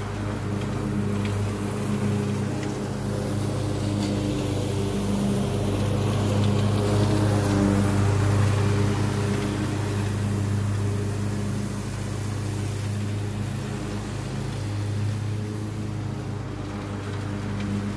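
Craftsman Z6000 zero-turn mower's engine running steadily while mowing, growing louder as the mower passes close by about halfway through, then fading as it moves away.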